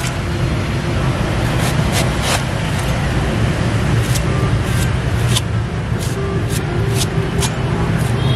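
Cleaver chopping and shaving the husk off a young coconut, a sharp cut every half second or so, over steady street traffic.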